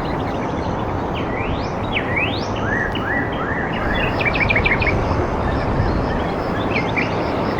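Small birds calling outdoors over a steady rushing background noise: several rising, sweeping calls in the first few seconds, then a quick run of short chirps about halfway through, and a few more chirps near the end.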